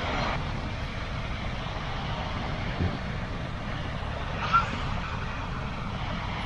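Steady low rush of wind on the microphone and breaking surf, with one brief, short high sound about four and a half seconds in.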